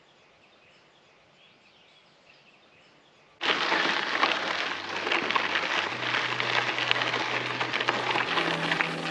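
Faint birdsong, then about a third of the way in background music cuts in suddenly and stays loud. The music has a held bass line that steps up in pitch and a busy, bright percussive top.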